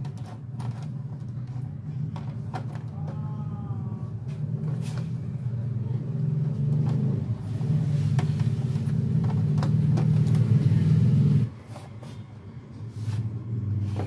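Light clicks and rustles of a hand handling the thin plastic reflector and diffuser sheets inside an LED TV's backlight, over a steady low rumble that grows louder and cuts off abruptly about three quarters of the way through.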